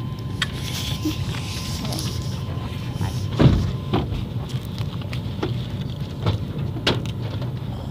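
Inside a vehicle with its engine running: a steady low rumble, a faint steady tone fading after the first couple of seconds, and a few short knocks and bumps, the loudest about three and a half seconds in.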